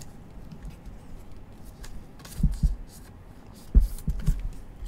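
Gloved hands handling trading cards in plastic sleeves and toploaders: soft plastic rustling and ticking, with a pair of light knocks about two and a half seconds in and three more near the end.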